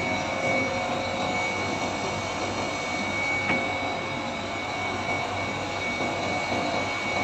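Air-conditioning unit running with its compressor, which had not been starting, now back on: a steady mechanical whir with a thin, steady high whine over it.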